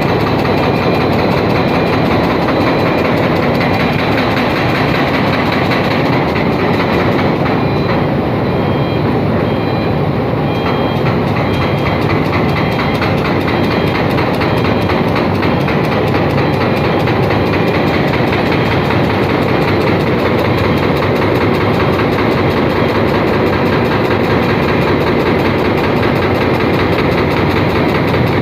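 Machinery running steadily, loud and unbroken.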